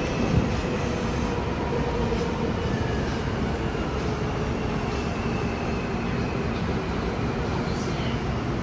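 Inside a Busan Metro 1000-series subway car with Toshiba PMSM traction motors running through a tunnel: a steady rumble of wheels and car body, with a faint electric whine that falls in pitch a couple of seconds in. There is a single thump about half a second in.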